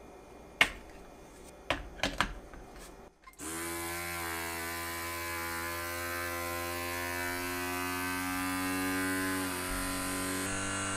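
A few light clicks, then from about three seconds in the battery-powered Ninja FreshVac vacuum pump's small motor runs steadily, drawing the air out of the single-serve blender cup to vacuum-seal it before blending.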